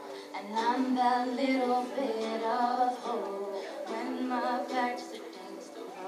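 A teenage girl singing an R&B ballad solo into a microphone, in phrases of held, wavering notes, over a quiet instrumental accompaniment.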